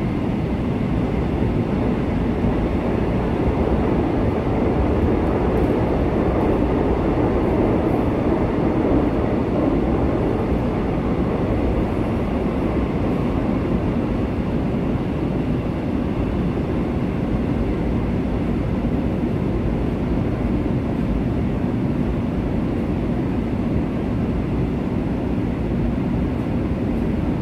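Interior running noise of a Korail Suin-Bundang Line electric commuter train heard from inside the passenger car: a steady, even rumble of wheels on rail and car body, with no stops or changes.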